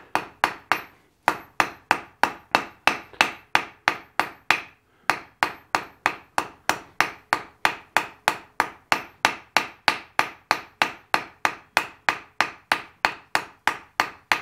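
Hand hammer striking a hot steel bar on the anvil face in a steady run of about three blows a second, each blow ringing briefly, with two short pauses to turn the bar. The bar is being drawn out and rounded up.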